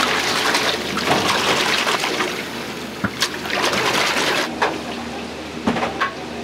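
Restaurant kitchen at work: a steady rushing hiss, loudest over the first four seconds, with a few sharp clicks and knocks of utensils around the middle and near the end.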